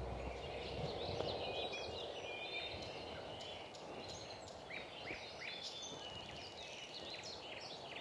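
Songbirds singing, many short chirps and quick whistled notes from several birds, over a steady low rush of outdoor background noise.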